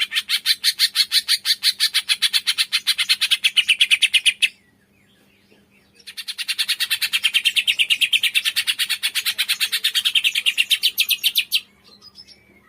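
Cungkok bird, the kind used for Indonesian songbird-training recordings, singing long fast trills of evenly repeated high notes, about seven a second. The first trill stops about four seconds in, and a second starts a moment later and runs until shortly before the end.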